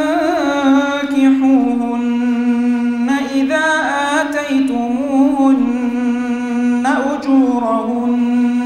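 A man chanting Quranic recitation in a slow melodic line, drawing out long held notes.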